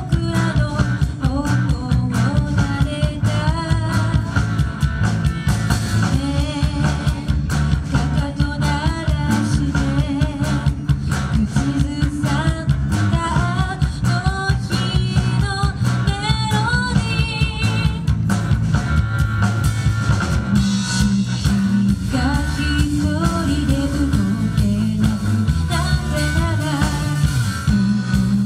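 Live rock-pop band: a woman singing a melody into a microphone over electric guitars and a drum kit.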